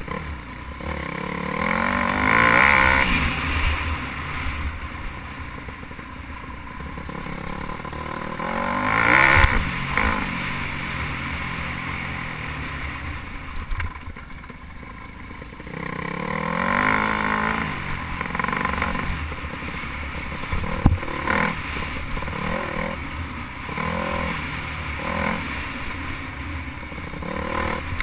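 Dirt bike engine revving up and down in repeated swells while riding a dirt trail, picked up by a camera on the bike, with rattling and a sharp knock about three quarters of the way through.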